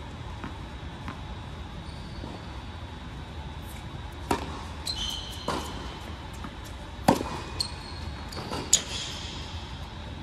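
Tennis ball struck back and forth by rackets in a rally on an indoor hard court: four sharp hits over the second half, the later two loudest and echoing in the large hall. Short high squeaks from tennis shoes on the court come between the hits.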